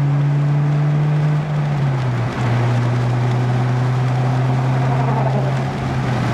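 Honda car engine droning steadily inside the cabin at road speed, with road and wind noise underneath; its pitch drops a little about two seconds in as the engine speed falls.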